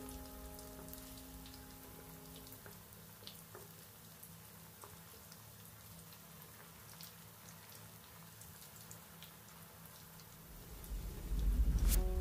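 Cabbage-and-carrot Manchurian balls deep-frying in hot oil: a soft steady sizzle with scattered small pops. Background music dies away in the first couple of seconds, and a louder low rumble with a sharp click comes near the end.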